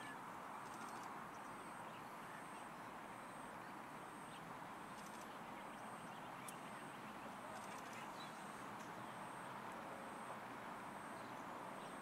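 Outdoor background ambience: a steady distant hum, with a faint high-pitched chirp repeating about twice a second and a few brief clicking rattles.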